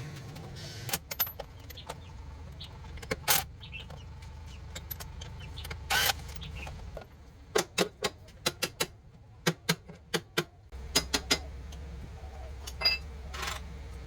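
Metal tools and parts clinking and knocking in a run of sharp, irregular clicks, with a low steady hum underneath.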